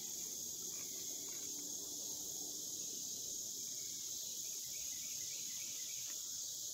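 Steady high-pitched drone of an outdoor insect chorus, holding an even level without a break.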